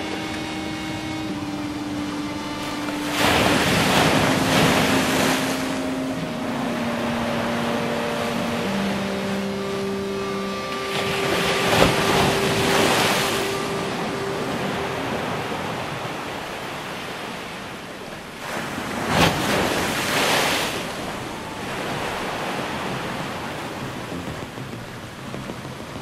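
Sea waves breaking and washing up a sloped concrete seawall, with a steady hiss of surf between three louder surges.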